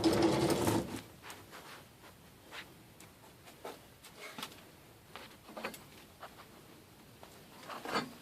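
Hand tools and hardware being handled while taking apart an old garage door: a loud rattling clatter in the first second, then scattered light clicks and knocks a second or so apart.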